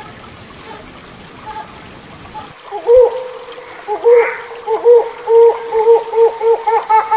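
Hornbill calling: after a couple of seconds of faint hiss, loud repeated calls begin about three seconds in and quicken into a fast, even run of calls near the end.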